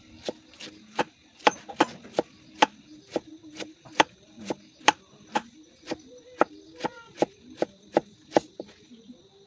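Large kitchen knife chopping a bamboo shoot into thin strips: a steady run of sharp knocks, about two and a half strokes a second.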